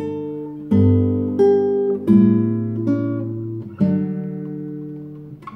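Nylon-string classical guitar playing a solo arrangement of a song melody: plucked chords with the tune on top, unhurried, about one every second. The last chord, about four seconds in, is left to ring and dies away, ending the piece.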